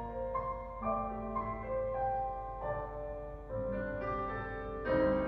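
Instrumental music with a piano melody, played back over Raidho TD 1.2 stand-mount loudspeakers.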